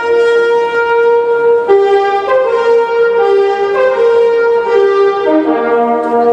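Orchestral ballet music: a slow melody of long held notes on wind instruments over sustained chords.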